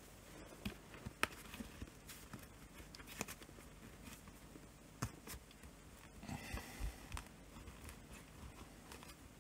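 Faint scattered clicks and light scraping from a playing card being worked in at the edge of a laptop's LCD panel to pry it out of the lid. The loudest click comes about a second in, with a short scratchy rasp about six seconds in.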